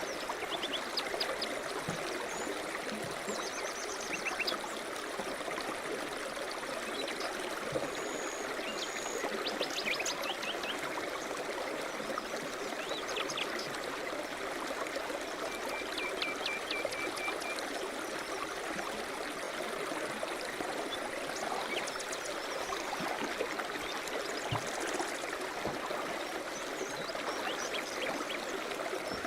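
River rapids rushing steadily, with small birds chirping and trilling now and then over the water.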